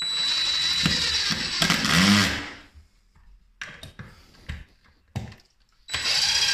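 Power drill driving a screw into a wooden block: one long run of about two and a half seconds with a steady motor whine, a few short bursts, then another run near the end.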